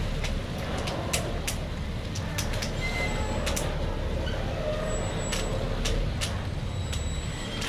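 Engines of the MV Dumai Line 8 fast passenger ferry running at idle while moored, a steady low rumble with scattered clicks over it.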